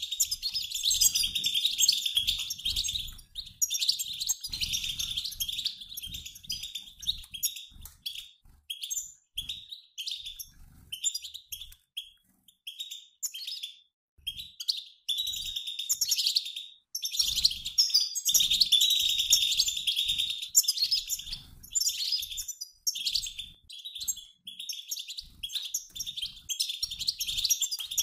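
A mixed group of European goldfinches, males and females, twittering and chattering together like a flock calling in flight. The calls come thick and fast at first and again in the second half, thinning to scattered chirps in between.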